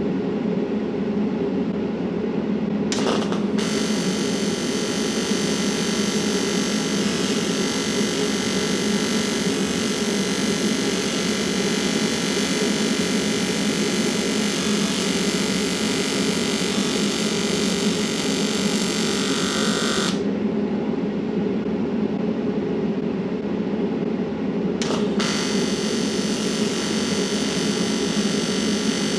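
Electric welding arc sizzling and crackling steadily as a bead is laid. It strikes about three seconds in, stops about twenty seconds in, and strikes again near the end, over a steady low hum.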